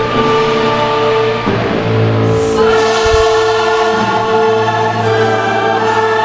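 Choral music: a choir singing long held chords over a low sustained bass, with the texture filling out about two and a half seconds in.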